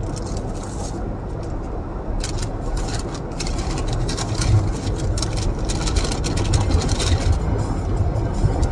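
Paper takeout bag rustling and crinkling with plastic food containers as food is pulled out of it, a dense run of crackles from about two seconds in until about seven seconds in. Under it, the steady low rumble of the car idling.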